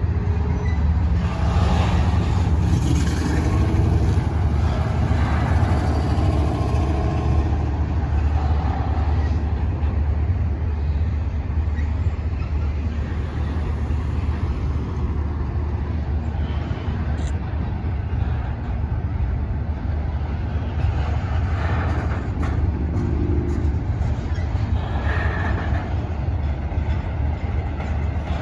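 Double-stack intermodal freight train cars rolling steadily across a railroad overpass, making a continuous low rumble.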